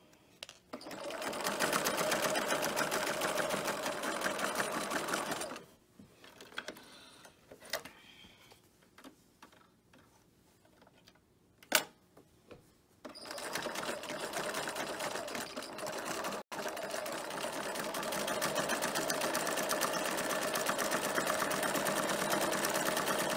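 Bernina 1130 electronic sewing machine running steadily as it stitches down a boning tape casing. It stops after about five seconds, leaving a quiet stretch of fabric handling and one sharp click, then starts again about halfway through and keeps running to the end.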